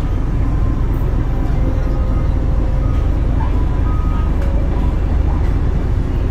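Steady low rumble of a roll-on/roll-off ferry's engines as the ship pulls away from the pier.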